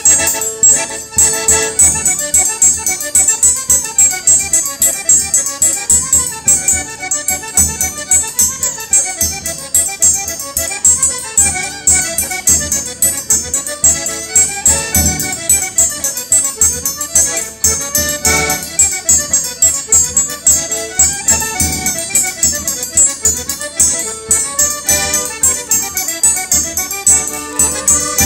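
Polish folk band playing a fast oberek in triple time: violin carrying the melody over accordion chords, with a drum beating the pulse.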